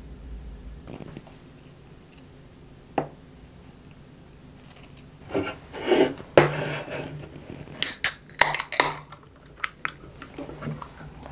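Aluminium beer can opened by its ring-pull: a sharp crack and a fizzing hiss about two-thirds of the way through, the 'refreshing sound' of a freshly opened beer. Before it, a few knocks and clatter as the can and a seasoning shaker are handled on the table.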